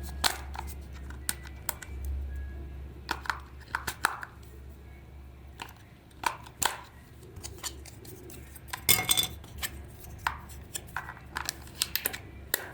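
Irregular clicks and light taps of small hard parts and tools being handled, over a low steady hum, with a denser cluster of clatter about nine seconds in.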